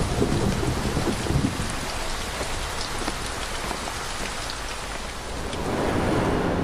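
Steady heavy rain falling and pattering on hard surfaces, with a low rumble that fades over the first second and a half.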